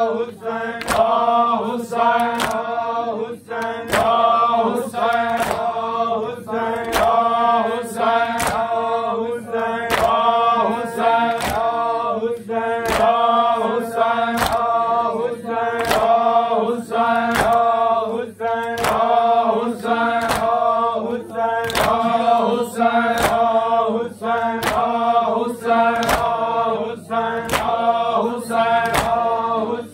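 A group of men chanting a noha (a Shia lament) in unison. Sharp rhythmic slaps land about once a second throughout, in time with the chant: chest-beating (matam).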